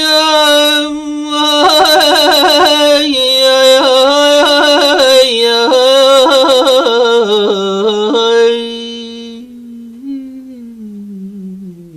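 A man singing without words: a long held note, then a fast, wavering ornamented run that slowly falls in pitch, fading to a much quieter, lower line near the end.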